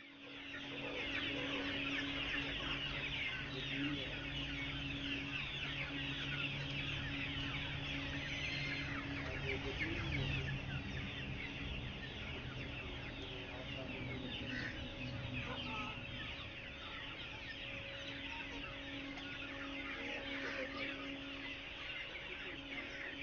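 Hundreds of young broiler chicks peeping continuously, a dense chorus of short high cheeps, over a steady low hum.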